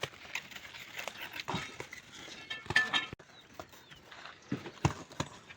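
Scattered sharp knocks, with a short animal call about two and a half seconds in. The sound cuts out suddenly just after three seconds.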